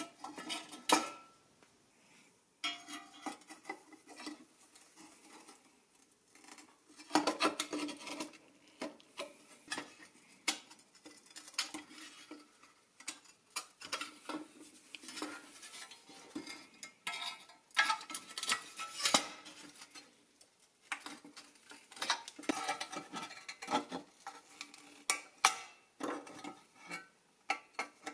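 Rusty pressed-steel toy jeep parts being handled and taken apart by hand: irregular metallic clinks, clanks and scrapes with a slight ring as the body, windshield frame and grille knock and shift, with pliers working a metal tab near the end.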